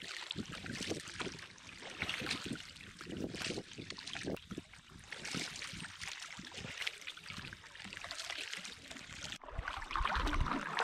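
Double-bladed canoe paddle dipping and pulling through calm river water, a soft splash and trickle with each stroke, about one a second. Near the end wind rumbles on the microphone.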